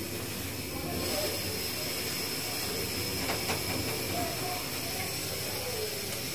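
Steady hiss of a pot of water with sardines heating on the stove toward the boil.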